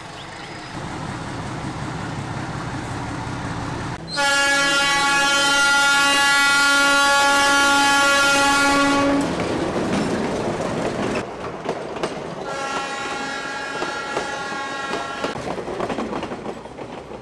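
A train running on the tracks with a rising rumble, then sounding its horn in one long, loud blast of about five seconds and a second, softer blast a few seconds later. The horn is the train's warning to people walking beside the line.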